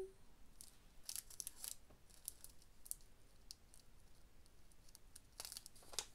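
Faint crinkling of a small plastic bag of diamond painting drills being handled, in short scattered crackles, a cluster about a second in and another near the end.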